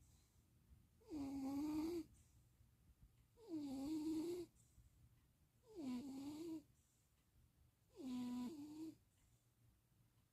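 Domestic cat snoring in its sleep: four evenly spaced snores, about one every two and a quarter seconds. Each is a short pitched note over a breathy hiss that dips and then rises slightly in pitch.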